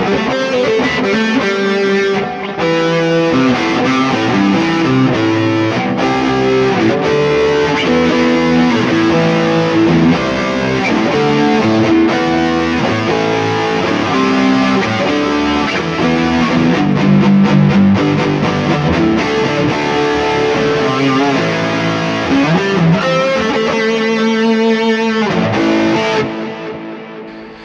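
Electric guitar, a G&L S-500, played through the Neural DSP Mesa Boogie Mark IIC+ amp model on a distorted 'Epic Lead' tone with delay, playing sustained single-note melodic lines. The last notes ring out and fade away near the end.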